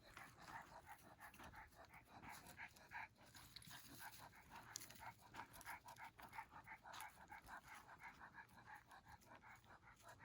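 Faint, rapid rhythmic panting, about five breaths a second.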